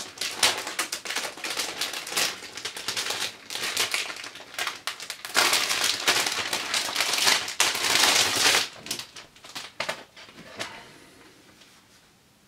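Thin plastic packaging sleeve crinkling and rustling as a laptop skin is handled and slid out of it, in quick irregular crackles. It is loudest in the middle and fades out in the last couple of seconds.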